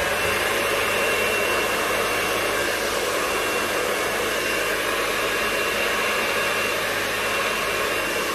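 Handheld hair dryer blowing hair dry, a steady rush of air with a thin, even whine riding on it.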